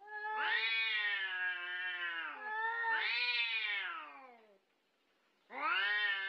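Two domestic cats yowling at each other in a standoff: long, wavering wails that rise and fall in pitch. Two wails come back to back, then after a pause of about a second another begins near the end.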